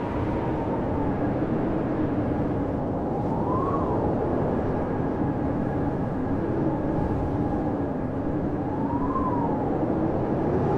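Blizzard wind howling steadily, with a low moaning tone that wavers in pitch and a higher whistle that rises and falls twice.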